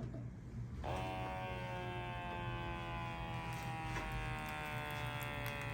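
Wrist blood pressure monitor's small electric pump inflating the cuff for a reading: a steady motor buzz that starts about a second in and slowly falls in pitch.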